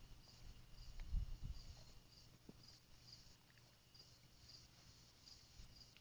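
Faint insect chirping: a short high chirp repeating about twice a second over a steady high hum, with a few soft low thumps about a second in.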